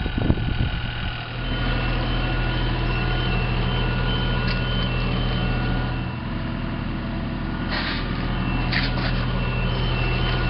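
An engine running steadily, with an electronic beeping alarm like a reversing alarm at about two beeps a second that shifts to a lower pitch partway through.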